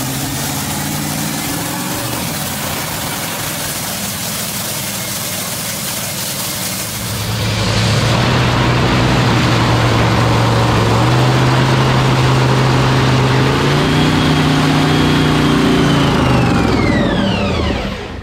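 Top Fuel dragster's supercharged nitromethane V8 running in the pits: a steady rushing noise at first, then from about seven seconds in a loud, steady idle, with a few changes in pitch near the end before it drops off.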